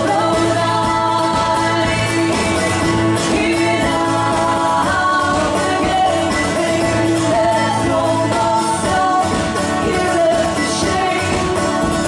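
Live folk-style duo: two women singing together over mandolin and acoustic guitar.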